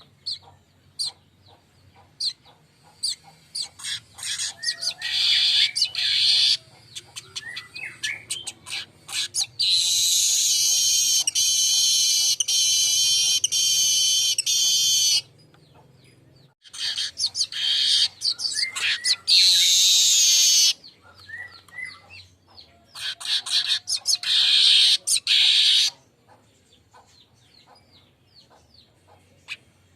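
Manyar weaver singing. A run of dry ticks and chattering notes builds into a long, loud, buzzy sizzling wheeze lasting about five seconds, then two shorter sizzling phrases follow after brief pauses.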